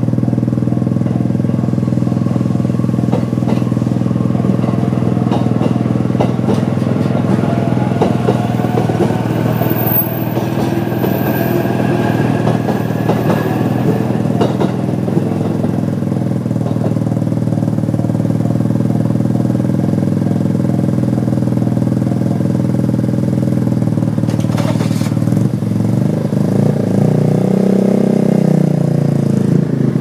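JR standard electronic level-crossing alarm bell ringing steadily while an E531-series electric train passes, with wheel clicks and a rising whine. The bell stops about 25 seconds in as the barriers lift, and an engine sound rises near the end.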